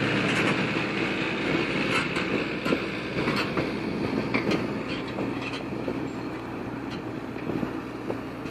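Valtra tractor's diesel engine running steadily under heavy load as it pulls a deep cultivator through the soil, with sharp knocks every so often.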